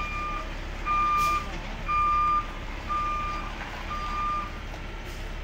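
Reversing alarm of a knuckle-boom crane truck: steady beeps about once a second, five in all, stopping about four and a half seconds in, over a low steady rumble.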